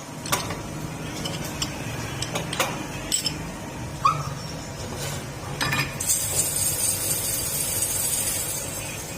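Metal parts and tools clinking and knocking, about six separate strikes, one ringing briefly, over a steady low hum. About six seconds in, a steady high hiss starts and lasts about two and a half seconds.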